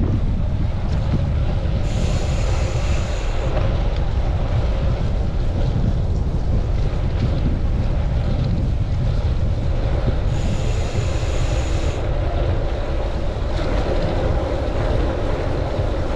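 Strong wind buffeting a chest-mounted camera's microphone during a bicycle ride, a loud steady rumble, with two short stretches of sharper hiss about two seconds in and about ten seconds in.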